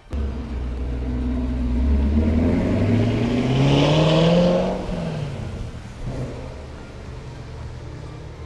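Camaro SS's 6.2-litre LT1 V8 starting up. The revs climb for a few seconds, peak about four seconds in, then drop back and settle into a steady idle.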